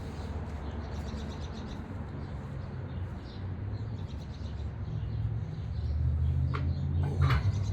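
Birds chirping faintly over a steady low rumble that grows louder about five seconds in.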